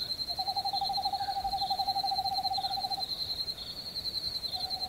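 An owl's long, quavering trill, about two and a half seconds, then starting again near the end. It sounds over fast, steady high cricket chirping, an eerie night-time soundscape.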